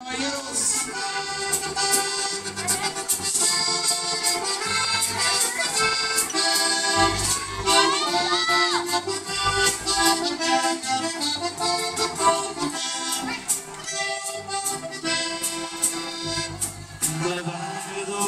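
Diatonic button accordion playing a lively norteño melody, miked live, over low bass notes and a steady beat.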